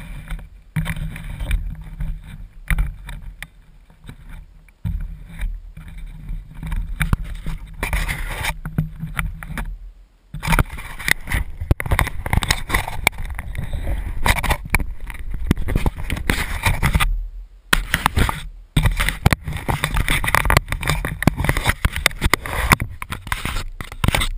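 Gusty wind buffeting the microphone of a crashed quadcopter's camera, a rumbling, crackling noise that comes and goes with two brief lulls.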